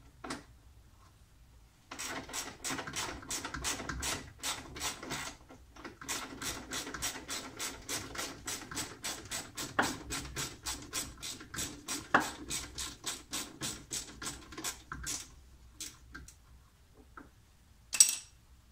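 Ratchet wrench clicking steadily, about five clicks a second, as a 10 mm bolt is backed out, in two long runs with a brief pause between them. A single sharp knock comes near the end.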